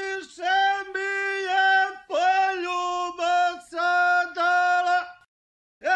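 A single voice singing held notes in short phrases, the pitch moving in small steps and sliding down at the end of some phrases. It breaks off for a moment near the end.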